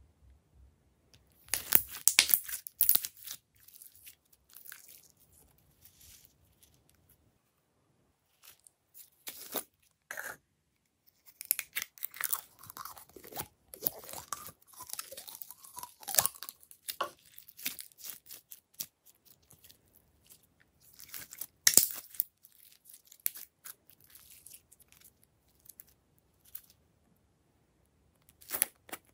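Glossy glitter slime being stretched, pressed and squeezed out of thin plastic cup-shaped molds by hand, giving bursts of sticky clicks and crackles with quiet pauses between them.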